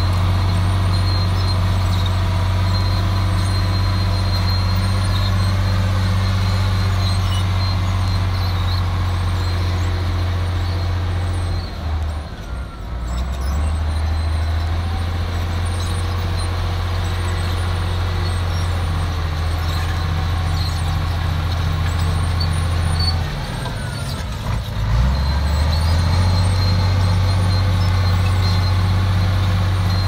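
Komatsu D53A crawler bulldozer's diesel engine running steadily under load as it pushes earth with its blade. The engine note drops briefly twice, about twelve seconds in and again about twenty-four seconds in, then comes back up.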